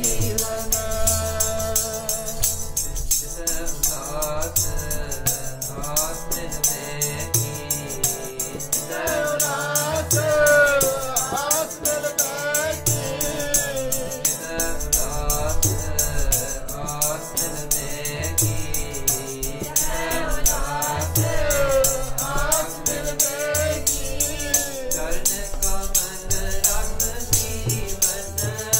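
Sikh keertan: a Gurbani hymn sung to harmonium, with a steady rhythm of hand-drum strokes and a fast, bright metallic jingle.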